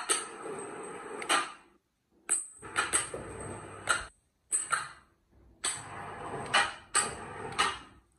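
Small electric winch hoist running in short stop-start bursts, about four times, each start and stop marked by a click or clunk, as it is worked from its push-button pendant to swing the semaphore signal arm.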